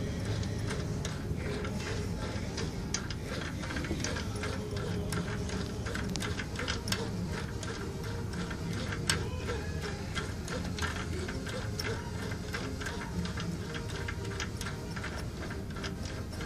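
Combination dial of a Hamilton safe lock being turned by hand, giving a run of light, irregular clicks over a steady low hum.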